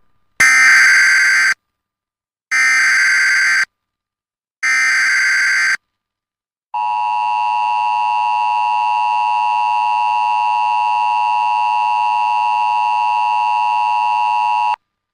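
Emergency Alert System broadcast opening: three screechy bursts of SAME header data, each about a second long with a second's silence between, then the steady two-tone EAS attention signal held for about eight seconds and cut off sharply. It announces an emergency alert, here a flash flood warning.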